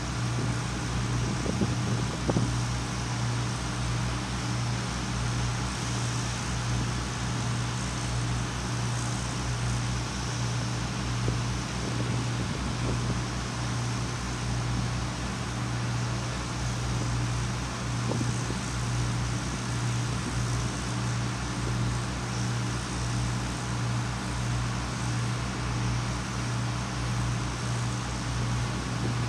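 A large engine running steadily at constant speed, a low hum with a slow, even pulsing.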